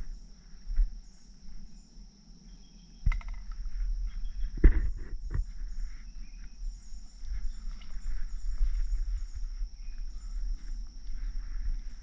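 Outdoor ambience with a steady high insect drone and faint short bird chirps over a low rumble, broken by sharp knocks about three seconds and about five seconds in.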